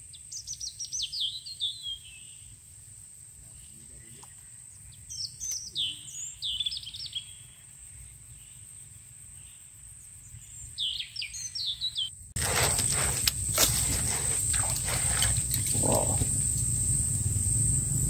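Birds calling in short, falling chirpy phrases, three times, over a quiet background. About twelve seconds in, it turns suddenly louder, with clicks, knocks and rustling of rod and reel handling as a small fish is hooked and pulled in.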